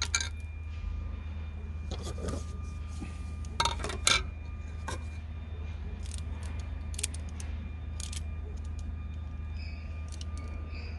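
Loose Oregon saw chain handled by hand, its steel links clinking and rattling in a few short, sharp clicks against each other and the guide bar, over a steady low background hum.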